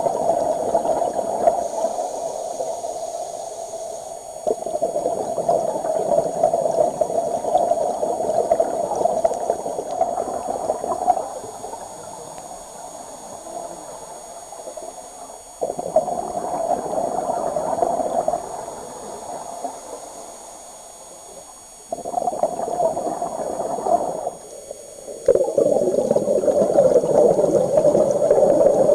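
Scuba diver's exhaled bubbles gurgling past an underwater camcorder housing, in bursts of a few seconds each with quieter gaps between breaths.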